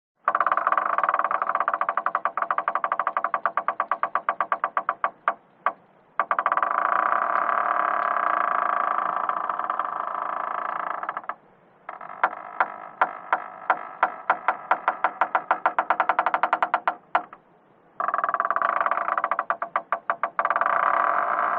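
Door hinge creaking as the door swings slowly, in four long creaks with short pauses between. Each creak shifts between a rapid rattle of clicks and a steady pitched squeal.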